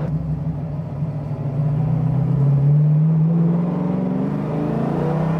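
Ford Maverick's engine heard from inside the cabin, pulling in gear: the revs and loudness climb about a second and a half in, then hold steady. The car has newly fitted 4.30 rear axle gears.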